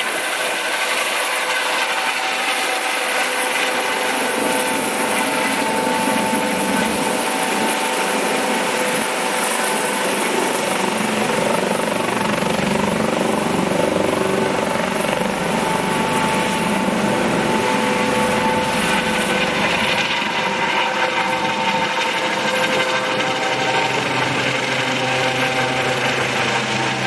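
Air ambulance helicopter, a Eurocopter AS365 Dauphin, taking off and climbing away overhead. A steady turbine whine runs over loud rotor noise.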